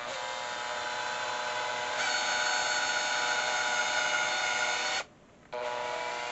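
Cordless drill motor whining at low speed as its twist bit bores into a polymer gun stock. The whine steps up about two seconds in, stops at about five seconds, then starts again briefly near the end.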